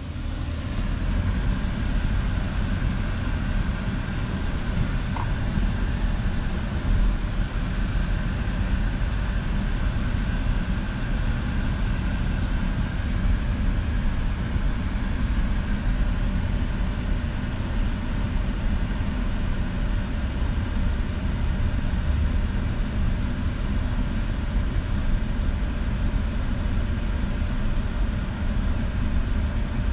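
Honda SUV driving slowly, heard from inside the cabin: a steady low engine and road rumble.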